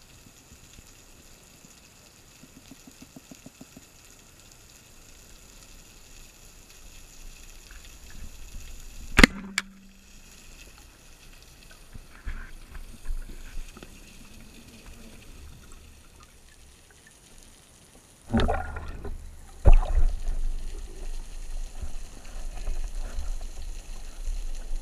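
Underwater sound on a spearfishing dive: a sharp click about nine seconds in, then from about eighteen seconds loud rushing water with a hard knock as the diver swims up toward the surface.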